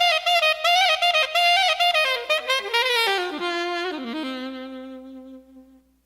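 Music: a single melody line steps downward and settles on a long held low note that fades out near the end.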